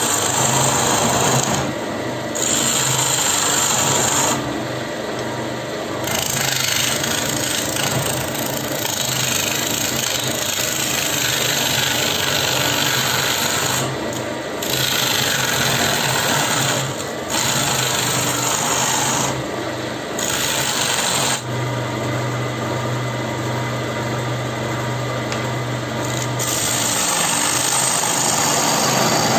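Wood lathe with a turning tool cutting the face of a spinning wooden blank, a steady scraping hiss of shavings coming off. Several short breaks where the tool leaves the wood, the longest lasting a few seconds about three-quarters of the way through, leave only the lathe motor's low hum.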